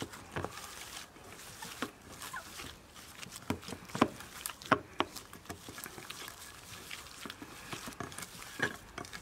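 Gloved hands kneading mixed minced pork and beef in a stainless steel bowl: wet squelching and irregular sharp smacks of meat against hands and bowl, loudest about four to five seconds in.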